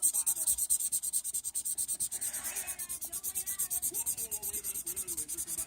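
Colouring strokes on paper: quick, even back-and-forth scribbling that makes a scratchy, rhythmic rubbing as a patch of the page is filled in.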